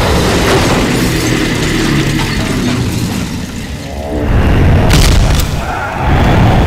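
Heavy booms and rumbling explosion sound effects over background music, with sharp crashing impacts about five seconds in and again near the end.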